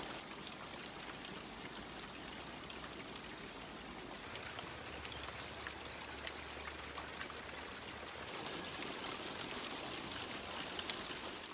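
Water falling and trickling down through the stacked bamboo tubes of an evaporative (adiabatic) cooling tower: a steady splashing hiss with faint scattered drips.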